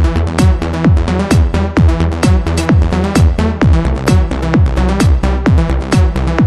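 Electronic trance-style music with a deep kick drum on a steady beat, about two hits a second, each hit dropping in pitch, over sustained synth tones.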